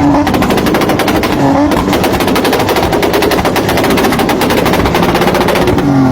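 Toyota Supra MK4's exhaust firing a rapid, even string of bangs, like AK-47 fire, over a steady engine note held at high revs.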